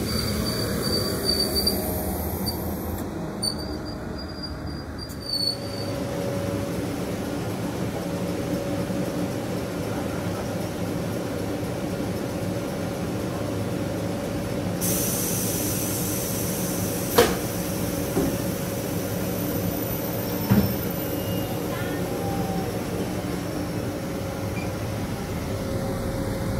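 Vintage red electric suburban train at the platform: a steady rumble and hum with a few held low tones, and two sharp knocks in the second half.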